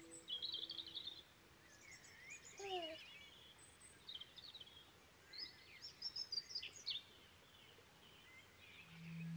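Faint birdsong: scattered short chirps and twittering trills over a light background hiss. A steady low tone fades out in the first second.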